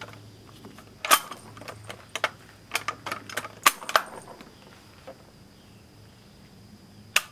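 Sharp metallic clicks and clacks from the bolt of an Italian Vetterli 1870/87/15 rifle being worked by hand, about six in the first four seconds and one more near the end, with no shot going off. The rifle is misfiring from light firing-pin strikes, which the owner suspects come from a weak firing-pin spring.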